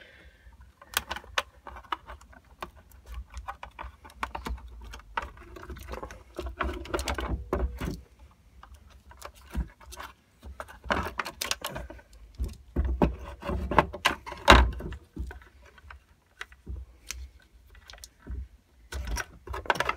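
Irregular clicks, knocks and rattles of hands unplugging plastic wiring connectors and working sealed lead-acid batteries loose from a scooter's battery tray.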